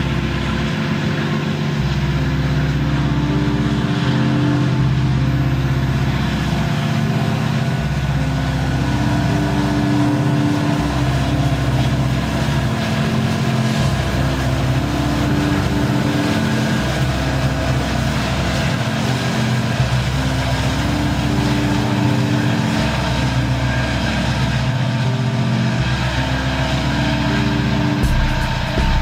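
Several Montana Rail Link SD70ACe diesel-electric locomotives, with EMD two-stroke V16 engines, passing under power. Their loud, deep engine drone swells and fades every few seconds over the rumble of steel wheels on rail.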